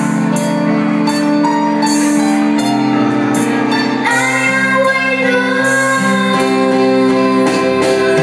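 A young girl singing a song into a microphone over a live band with electric guitar and keyboard. The opening seconds are instrumental, and her voice comes back in about four seconds in.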